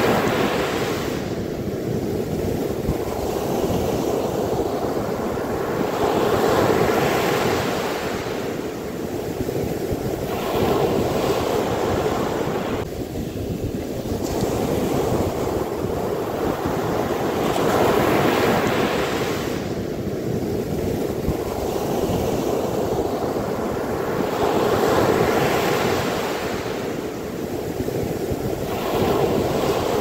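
Sea waves breaking and washing up a sandy beach, the surf swelling and fading every six or seven seconds, with wind rumbling on the microphone.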